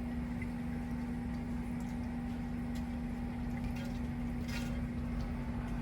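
A steady electrical hum with a constant low tone, with a few faint scrapes of a utensil stirring cream sauce in a skillet.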